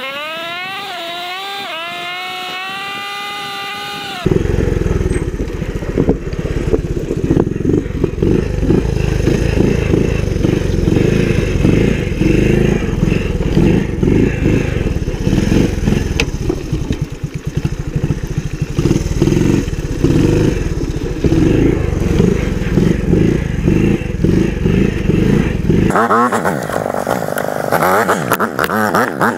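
Honda ATC110 three-wheeler's small single-cylinder engine being ridden, its pitch rising and falling with the throttle. After about four seconds it changes abruptly to a loud, close, muffled rumble of engine and wind buffeting. Near the end the sound changes character once more.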